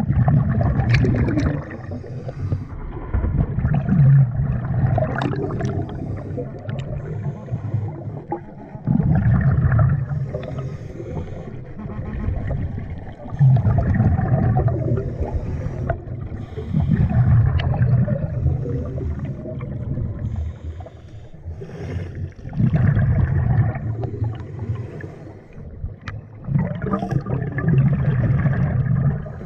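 Scuba diver breathing underwater through a regulator: a bubbling rush of exhaled air about every four to five seconds, each lasting two to three seconds, with quieter spells between.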